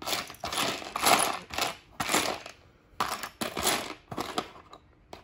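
Small plastic Lego pieces clattering and rattling against each other, in three bursts of clatter about a second long with short pauses between.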